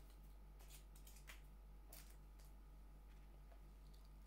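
Near silence, with a few faint, short clicks of a steel-and-wood watch bracelet being handled, over a steady low hum.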